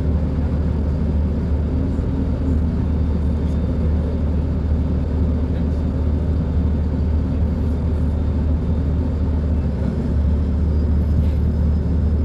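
Diesel engine of a Mercedes-Benz O-500U city bus with Caio Millenium IV body running at a steady speed, a deep, even rumble with no revving.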